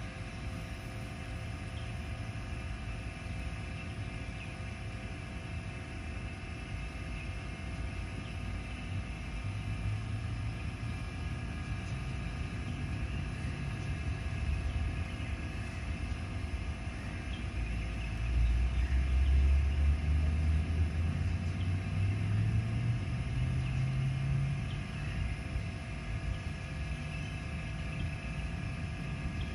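Steady low rumble with a constant hum. About eighteen seconds in, a louder low engine drone comes in and rises in pitch over several seconds before easing off.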